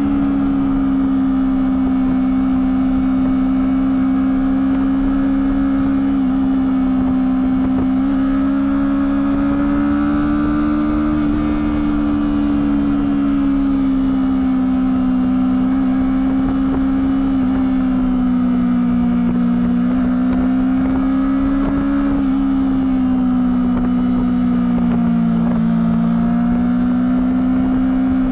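Honda CBR250RR motorcycle engine through its stock exhaust, held at a steady high engine speed, its pitch drifting gently up and down without sharp revs.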